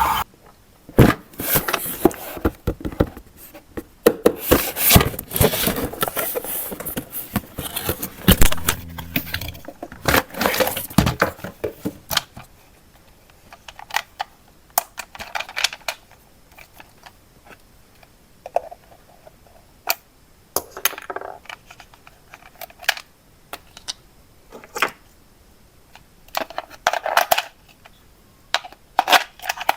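Hands handling hard toy pieces and packaging: a busy run of clicks, taps and scrapes for about the first twelve seconds, then scattered knocks and short scrapes.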